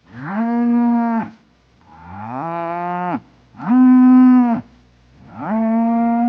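Cow mooing: four long moos of about a second each with short pauses between, the second one rising in pitch.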